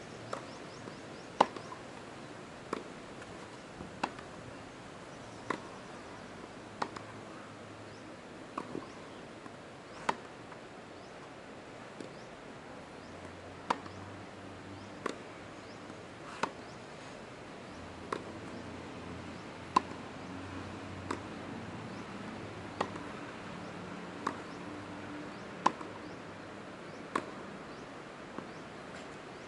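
Tennis ball struck by rackets in a long baseline rally: a sharp pock about every one and a half seconds, the near player's hits louder than the far player's, with fainter ball bounces in between.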